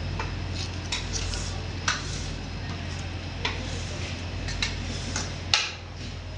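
Scattered light clicks and knocks of plastic chocolate moulds and tools being handled on a stone counter, about eight in all, the sharpest about five and a half seconds in, over a steady low fan hum.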